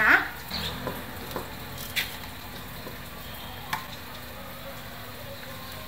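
A few light, sharp clicks and taps, spread about a second or two apart, as aluminium-foil pastry cups are set down into a large aluminium pot, over a faint steady hiss and low hum.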